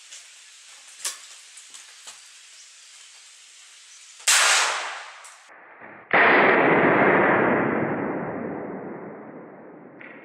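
A single .22 Long Rifle handgun shot about six seconds in, sudden and then fading slowly over several seconds. A shorter loud burst of noise comes about two seconds before it, over a faint steady hiss.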